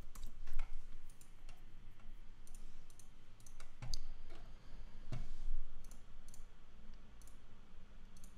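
Computer mouse buttons clicking, about a dozen sharp clicks at irregular intervals.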